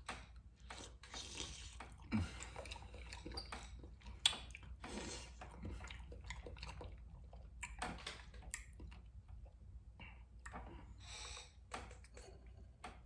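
Faint wet squishing and small clicks of fingers handling fufu and meat in achu soup, with one sharp click about four seconds in.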